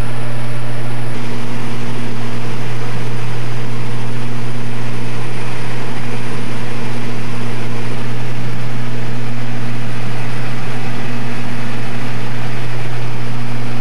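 Cabin drone of a light aircraft's propeller engines in cruise: a loud, steady, deep hum, with a fainter higher tone above it that comes and goes.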